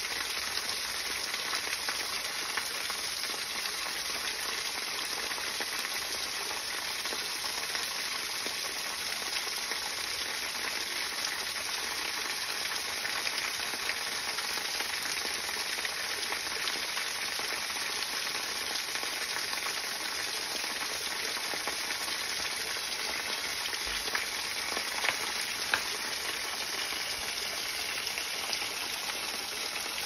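A small, thin waterfall splashing steadily over rocks into a shallow pool, an even rushing hiss of falling water. A couple of faint taps come about three-quarters of the way through.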